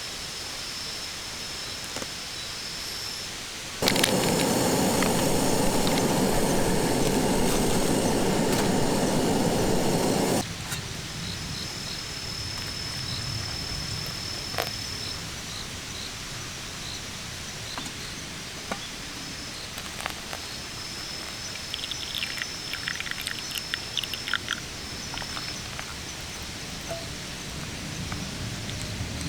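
Outdoor woodland ambience: a steady hiss with a thin high steady note and scattered chirps, and a short run of rapid bird chirps past the middle. About four seconds in, a loud rushing noise cuts in suddenly and stops just as suddenly some six seconds later.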